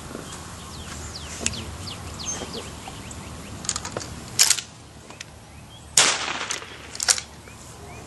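Gunshots in a retriever training drill: a few sharp reports in the second half, the loudest about six seconds in with a short echoing tail.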